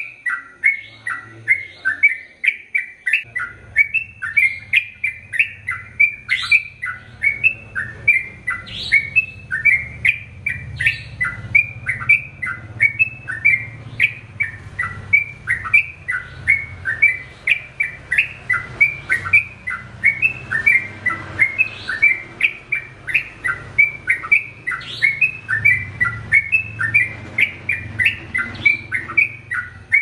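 Yellow-vented bulbul singing a long unbroken run of quick, varied whistled notes, about three a second. This is the long 'ropel' song that tutor recordings for caged birds are made of.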